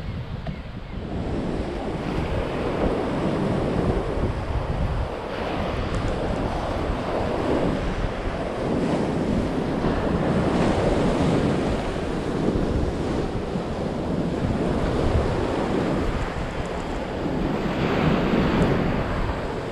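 Ocean surf washing onto the beach in slow swells that rise and ease every few seconds, with wind rumbling on the microphone.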